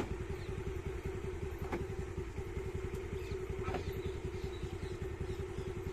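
Scooter's small engine running steadily with an even, rapid beat, with a sharp click at the very start.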